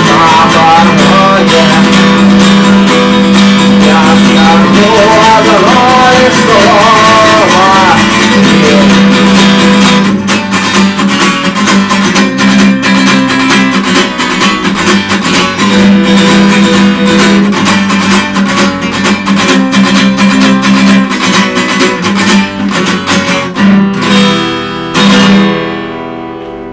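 Guitar-led rock band music with no singing, over a steady bass line. About ten seconds in it thins to sharper picked guitar strokes, and it ends on a last chord that rings out and fades.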